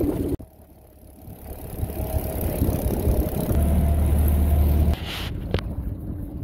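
Small dinghy outboard motor running as the boat moves over the water, building up after a short lull and then running steadily. Near five seconds the sound drops and a brief sharp click is heard.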